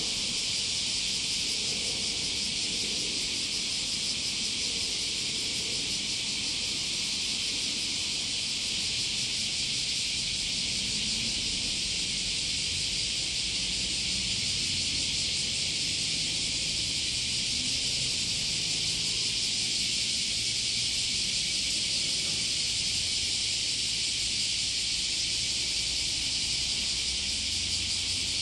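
Steady, high-pitched insect chorus, even and unbroken, with a faint low wavering drone underneath in the second half.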